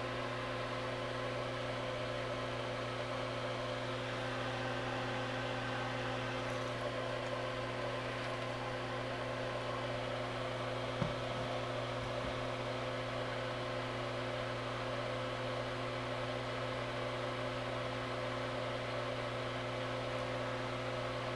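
Steady machine hum with several fixed tones, unchanging throughout, with one faint click about halfway through.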